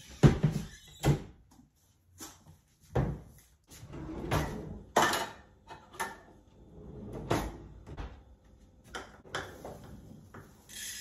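Kitchen cabinet door and drawer opened and shut, with a series of sharp knocks and clunks as a plastic container is handled, the loudest just after the start. Near the end comes a brief hissing rattle of dry red lentils poured from the plastic container.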